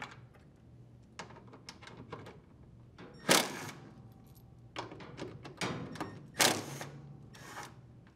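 Cordless drill-driver running in several short bursts as it backs out the screws holding a washing machine's drain pump, with small clicks and taps of the screws and bit being handled in between.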